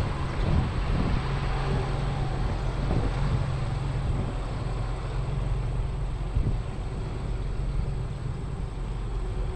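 A vehicle engine running steadily, a low continuous drone with some wind and road noise over it.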